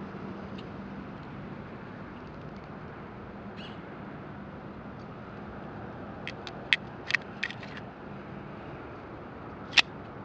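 Handling clicks of a Wiener Fabrik Little Tom .32 ACP pistol over a steady low hum: a run of small metallic clicks as its brass magazine goes in through the top of the open slide, then one sharp click near the end as the slide closes.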